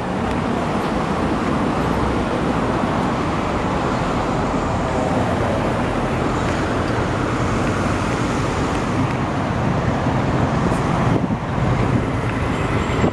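Steady road traffic noise: cars driving past on the street.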